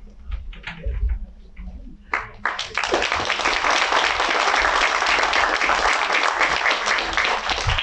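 A few light knocks, then an audience applauding from about two and a half seconds in, a dense steady clapping that lasts to the end.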